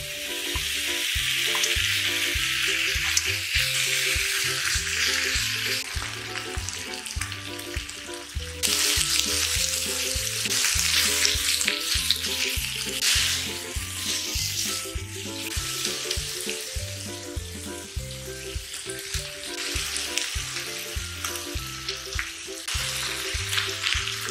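Pork belly slices sizzling loudly as they fry on a hot griddle pan, starting as the meat hits the pan, then stir-fried with cabbage, onion and chili-paste sauce, with light scraping of a spatula. The sizzle shifts abruptly a couple of times, and background music with a steady beat runs underneath.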